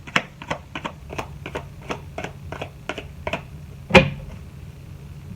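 Light, even clicks or taps, about four a second, stopping about three and a half seconds in, followed by one sharp knock about four seconds in.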